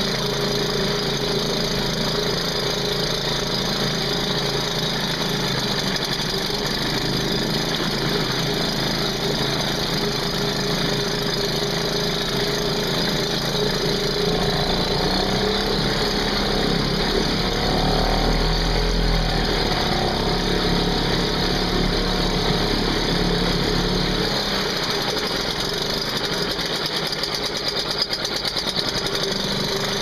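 Vintage British Seagull 102 outboard motor, a single-cylinder two-stroke, running steadily in a test barrel with its propeller churning the water. For a few seconds in the middle it runs a little louder and deeper, then settles back.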